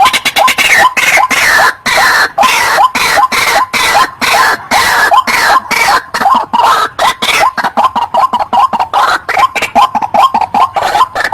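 White-breasted waterhen (ruak-ruak) calling: a fast run of harsh, croaking notes several times a second, with louder falling, raspy phrases in the middle.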